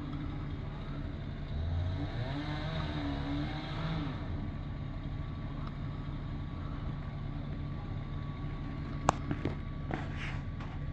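An engine running steadily, its pitch wavering up and down for a couple of seconds, with a few sharp knocks near the end.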